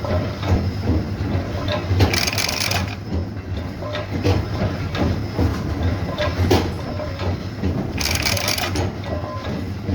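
Machinery running with a steady low hum and scattered clanks and knocks, and two short bursts of hiss, about two seconds in and again near the end.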